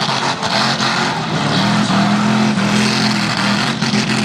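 Mud racing truck's engine running hard, a steady engine tone that grows stronger about a second and a half in, over a dense wash of noise.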